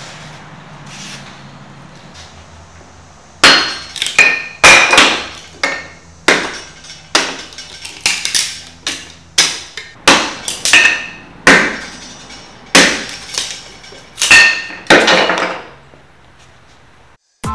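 Hand-forged meat cleaver chopping repeatedly into a wooden block resting on an anvil: a run of sharp chops, about two a second, starting a few seconds in and lasting about twelve seconds, many with a short metallic ring.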